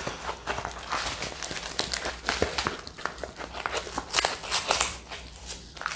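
Plastic packaging crinkling and rustling in irregular crackles as a diamond painting kit's contents, including the plastic strip of drill bags, are handled and set down.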